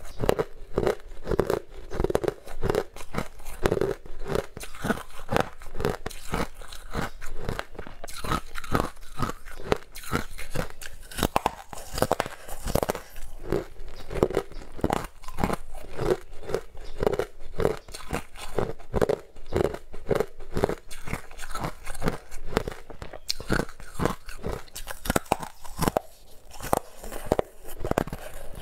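Teeth biting and crunching hard frozen purple ice bars, picked up close on a clip-on microphone. The ice cracks and grinds in a dense, irregular run of crunches, several a second, without let-up.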